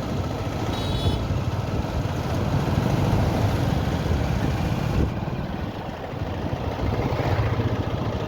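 Engine and road noise of a vehicle on the move, a steady low rumble with a hiss over it; a brief high-pitched beep about a second in.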